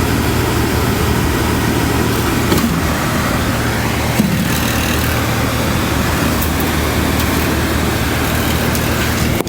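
RV furnace blower motor running steadily with a low hum and a rattle, which comes from loosened bolts on the fan mount and a wire touching the fan.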